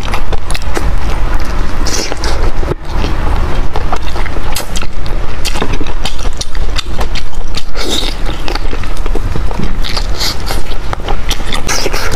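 Loud close-miked chewing and lip-smacking of someone eating braised meat on the bone, a dense run of wet clicks and smacks.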